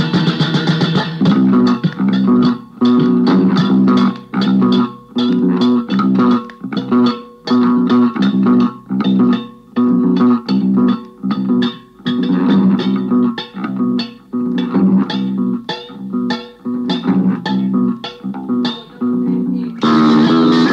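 Indie rock song, instrumental passage. About a second in, the full band drops to a stop-start section of short plucked guitar and bass phrases separated by brief gaps. The full band comes back in near the end.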